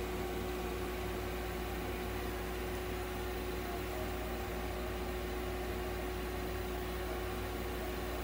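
Nebulizer and oxygen equipment of a veterinary oxygen cage running: a steady mechanical hum with one constant mid-pitched tone over an even hiss of air and mist.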